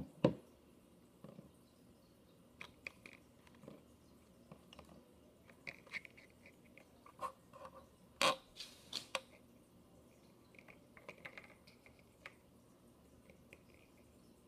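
Faint, scattered clicks and taps of small objects being handled on a work desk. Two louder knocks stand out, one just after the start and one about eight seconds in.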